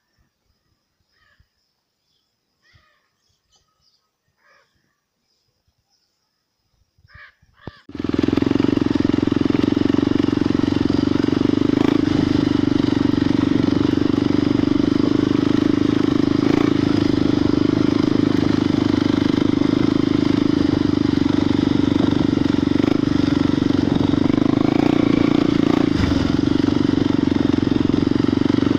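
A faint high steady insect tone with a few light ticks, then about eight seconds in a loud steady motor drone starts abruptly and holds, like a motorcycle engine running.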